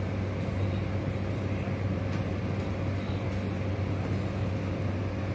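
Steady low hum with an even hiss over it, unchanging, and a few faint ticks in the middle.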